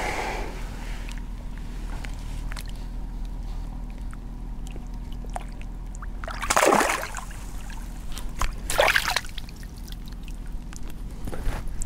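A carp splashing as it is released by hand into shallow pond water: two short splashes about two seconds apart, a little past halfway through, with faint sloshing and small water sounds between.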